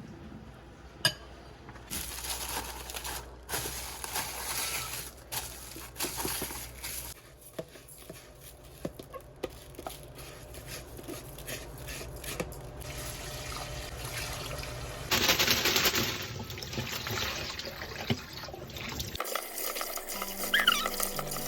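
Kitchen sounds: water running and dishes clinking, with a louder rush of water about fifteen seconds in. Background music comes in near the end.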